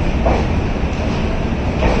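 Rajdhani Express train rolling into the station, its wheels running over the rails with a loud, steady rumble and a clack near the start and again near the end.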